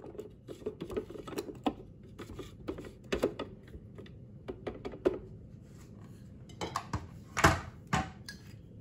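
Silicone spatula scraping and knocking against the plastic bowl of a food processor full of thick hummus: a run of short, irregular scrapes and taps, the loudest near the end.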